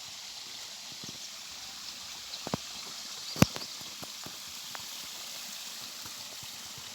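Small stream of water running steadily, with a few sharp clicks, the loudest about halfway through.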